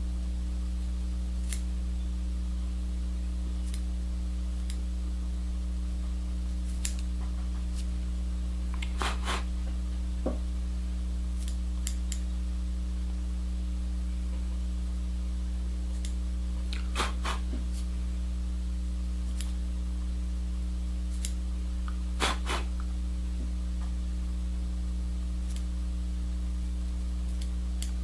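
Sharp scissor snips trimming the orange hair body of a bass diver fly into shape, a dozen or so irregular cuts, some in quick pairs, over a steady electrical hum.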